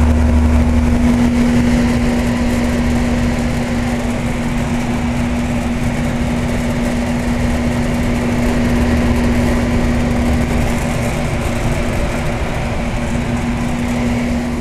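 York Champion IV 'Tombstone' central air-conditioner condensing unit from about 1975 running: the compressor gives a steady hum under the even rush of its twin condenser fans pushing air out the top.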